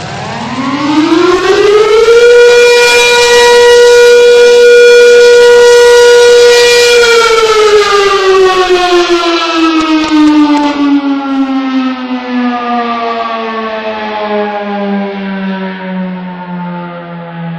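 Outdoor warning siren sounding one test cycle. It winds up in pitch for about two seconds, holds a steady, loud wail for about five seconds, then winds slowly down and is still falling at the end.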